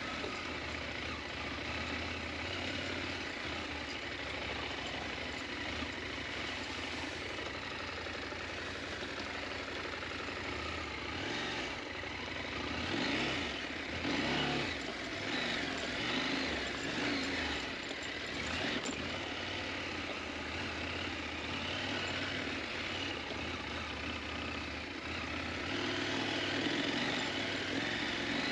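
KTM 890 Adventure motorcycle's parallel-twin engine running while riding off-road. The revs swell and fall several times about halfway through and again near the end.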